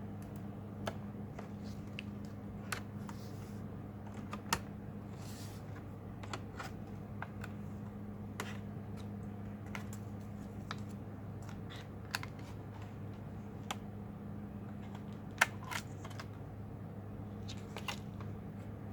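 Scattered small clicks and taps of tools and plastic parts as an HP 15-R029WM laptop is taken apart, the loudest about four and a half and fifteen and a half seconds in, over a steady low hum.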